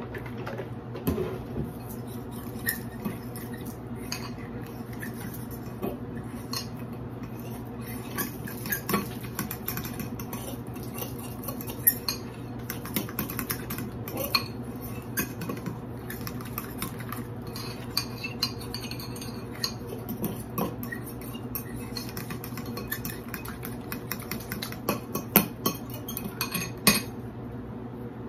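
A metal fork whisking flour and milk into batter in a glass bowl: quick, irregular clicks and scrapes of the fork against the glass that stop near the end.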